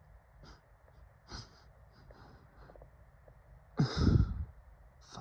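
A person breathing with short sniffs, then one loud breathy huff just under four seconds in, the breath hitting the microphone.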